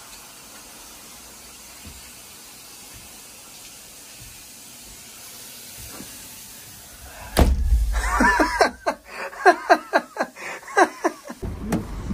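A faint, steady hiss, then about seven seconds in a loud low rumble like wind on the microphone, with a person's voice sounding over it for a few seconds.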